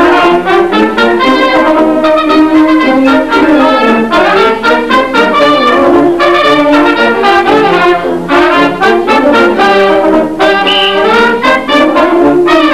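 A brass band playing a tune, a steady run of many short notes.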